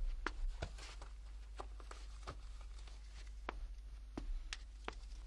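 Quiet room tone with a dozen or so scattered light clicks and taps.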